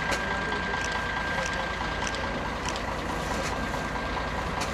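Steady low rumble of an idling bus engine, with a thin high-pitched whine over it and soft ticks about once every three-quarters of a second.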